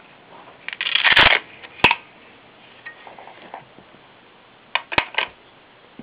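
Handling of a clamp-on rifle bipod and its Velcro closure strap: a short rasping rip about a second in, a sharp click, then a quick cluster of clicks near the end.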